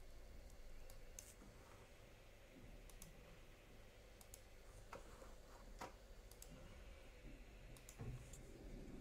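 Near silence: low room tone with faint, irregularly spaced computer keyboard clicks, about a dozen.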